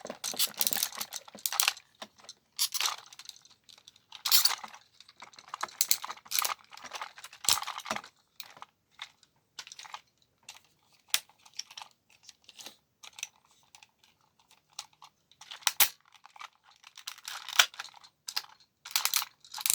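Irregular clicks, clacks and rustling scrapes from hard plastic toy parts being handled and moved.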